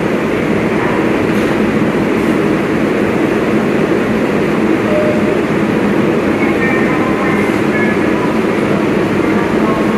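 R188 subway train standing at the platform, its equipment giving a loud, steady hum that echoes in the underground station.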